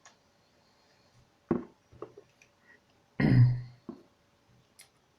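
Handling noise from phone repair: a few sharp knocks and clicks as small tools and smartphone parts are picked up and set down on a hard work surface, the loudest and heaviest about three seconds in.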